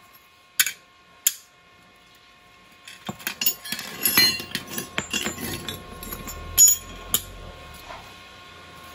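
Steel parts clinking and knocking as they are handled and set down on a concrete floor: two sharp clinks in the first second and a half, then a busy run of clinks, knocks and scrapes from about three seconds in, the loudest near seven seconds.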